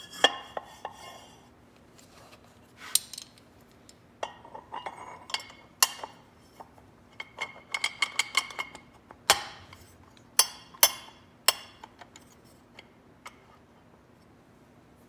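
Metal parts of a snowmobile drive clutch being fitted together by hand: irregular sharp metallic clicks and clinks, some with a short ring.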